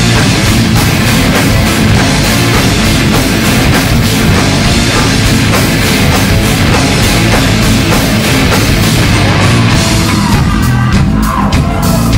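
Industrial metal band playing live: heavy distorted guitars over a pounding drum kit. Near the end the guitars thin out and the drums come to the fore.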